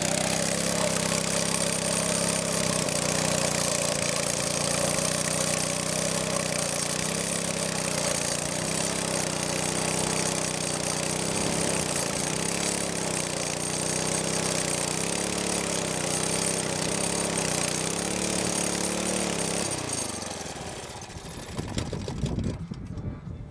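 Small gasoline engine of a wakeboard winch running under load as it tows a rider across the water, its pitch wavering up and down. Near the end it slows, falling in pitch, and fades away.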